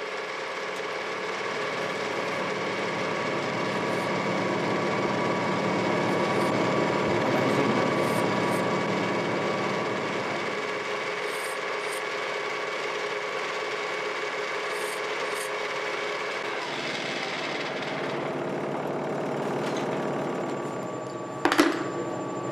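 CNC lathe turning a bagpipe base stock from African blackwood: the cutting tool shaves the spinning wood over a steady machine whine, louder for a few seconds midway and then easing. One sharp knock near the end.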